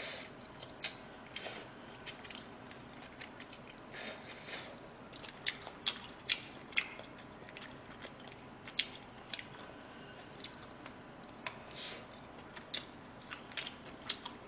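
A person chewing a mouthful of fried rice close to the microphone, with irregular sharp wet mouth clicks and smacks.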